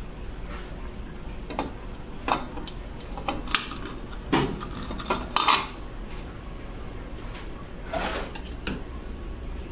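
Metal parts of a Mercedes 722.9 automatic transmission clinking and knocking against each other and the aluminium case as they are set into the housing by hand: a string of irregular light clanks, busiest from about two to six seconds in and again near the end.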